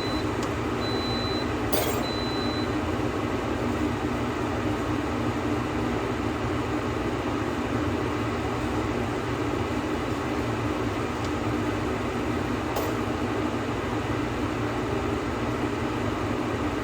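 Steady whooshing machine noise with a low hum. In the first three seconds a short high-pitched beep repeats several times, and a sharp click comes about two seconds in.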